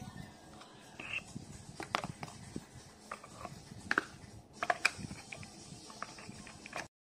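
Light plastic clicks and knocks as a small electric food chopper is assembled: the blade unit set into its plastic bowl, then the lid and motor top fitted on. The sound stops abruptly near the end.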